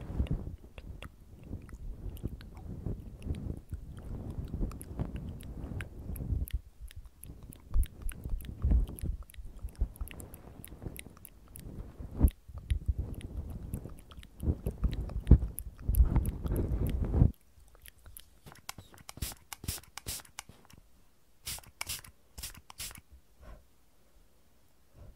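Fluffy feather-tipped ear-cleaning sticks brushed and rubbed right against a binaural microphone's ears, a dense close scratchy rustle that stops abruptly about two-thirds of the way through. After it, a cotton pad is rubbed and crinkled between fingertips, with sparse light, crisp crackles.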